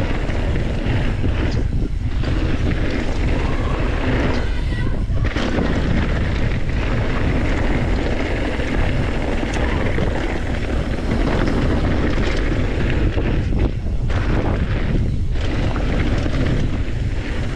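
Wind buffeting a rider-mounted camera's microphone together with mountain bike tyres rolling fast on a hard-packed dirt jump line. It is a steady low rumble with a few brief dips.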